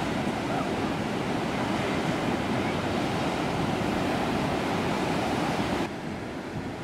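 Ocean surf breaking on a beach: a steady rushing wash of waves. It drops noticeably quieter about six seconds in.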